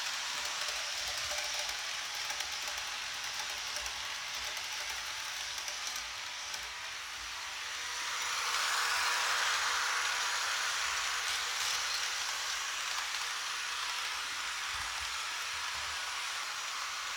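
Märklin model of an SBB Re 620 electric locomotive with a sound decoder, its small loudspeaker playing a steady hissing locomotive running sound with a faint hum, which swells louder about halfway through.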